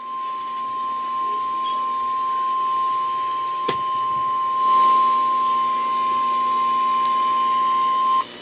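Emergency Alert System attention signal from NOAA Weather Radio: a single steady tone, the 1050 Hz warning alarm tone, held for about eight seconds over faint radio hiss and cut off abruptly near the end. It marks the start of a severe thunderstorm warning. A click sounds about four seconds in.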